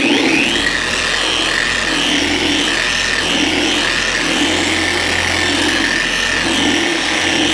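Electric car polisher running with finishing polish on painted clear coat, its hum swelling and fading about once a second as it is worked across the panel. This is the finishing pass that takes out the swirl marks and fine scratches left by the cutting compound.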